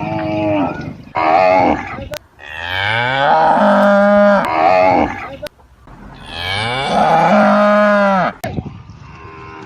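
Cattle mooing: two short moos, then two long drawn-out moos that each rise in pitch and then hold steady. Brief sharp clicks fall between the calls.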